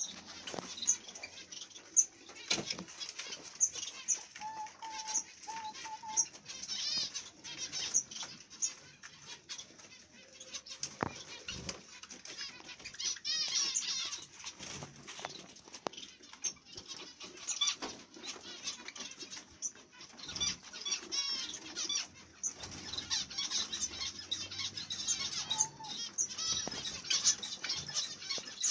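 Caged Java sparrows chirping: a busy run of short, high chirps and quick trills, with a few lower whistled notes about five seconds in. Wings flutter and something knocks sharply now and then.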